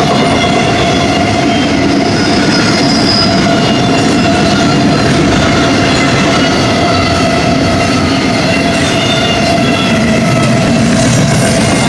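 Double-stack intermodal well cars of a freight train rolling past at speed: a loud, steady rumble of steel wheels on rail, with a steady whining tone over it.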